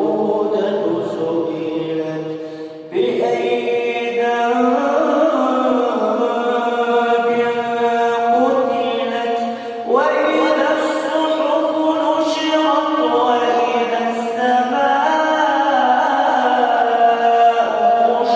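A male reciter chanting the Quran in a melodic tajweed style, drawing out long, ornamented phrases with short breaths between them; new phrases begin about three and ten seconds in. The voice is dry, with no added echo or effects.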